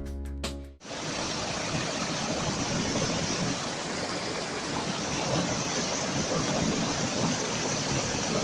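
Plucked background music stops abruptly under a second in. A steady rushing noise, even across high and low pitches, follows.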